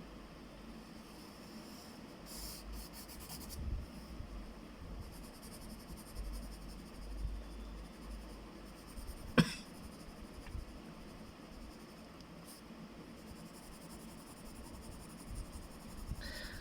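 Faint pencil strokes scratching on drawing paper, with one sharp click about nine seconds in.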